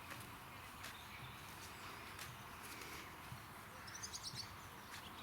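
Quiet outdoor ambience: a low steady hiss with a few faint clicks, and a short run of high bird chirps about four seconds in.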